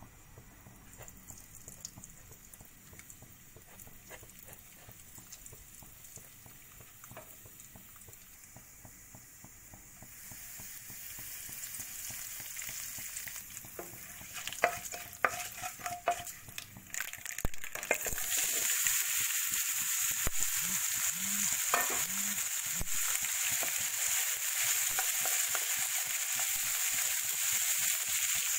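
Hot oil with mustard seeds and urad dal in a pan, faint at first and then sizzling more and more, with sharp pops and crackles as the mustard seeds splutter and curry leaves go in. About two-thirds of the way through, a much louder steady sizzle starts as chopped green beans go into the hot oil and are stirred with a wooden spatula.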